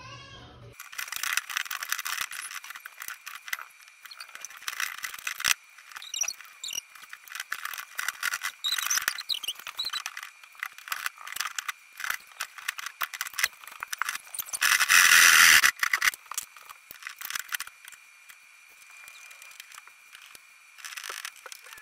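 Scraping and clicking as a plastic bath exhaust fan housing is worked into a drywall ceiling opening that is too small for it. The sound is thin and high, with many quick scrapes, a faint steady whine underneath, and one louder rasping stretch a little past the middle.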